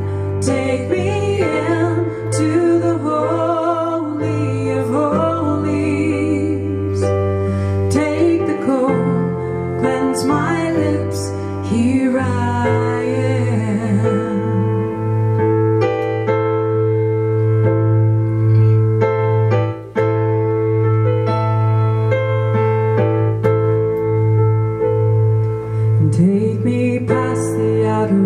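A woman singing a worship song to electronic keyboard chords, over steady low bass notes. Her voice drops out about halfway through, leaving held keyboard chords, and comes back near the end.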